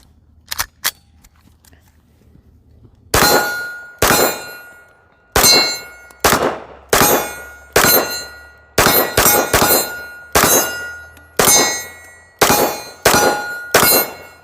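Steel silhouette target ringing from repeated hits, about sixteen irregularly spaced strikes. Each one is a sharp clang with a metallic ring that fades within a second. Two faint clicks come in the first second, before the hits begin.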